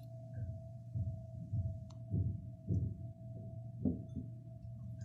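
Soft, dull thumps of things being handled and set down on a kitchen worktop, roughly every half second, with a couple of faint clicks, over a steady thin electrical hum.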